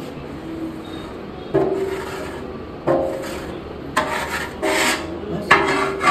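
Spatula scraping a large cooking pan in repeated rasping strokes, about five of them, the first about a second and a half in and coming closer together towards the end.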